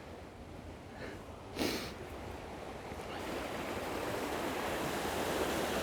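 Rushing water of a burn, a steady noise that swells louder from about three seconds in. A brief scuffing noise about one and a half seconds in.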